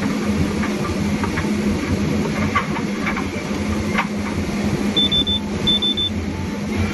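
Forestry harvester at work: its engine and hydraulics running steadily while the head saws and feeds a log, with scattered knocks and cracks from the head on the wood. Two short runs of high beeps sound about five seconds in.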